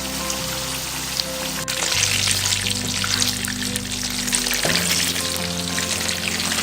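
Sausages and chips sizzling and crackling as they fry, over background music with slowly changing chords.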